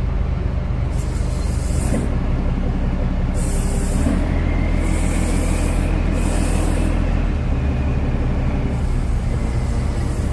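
A loaded rice cargo boat's engine running steadily with a low drone, broken by several bursts of hiss about a second long.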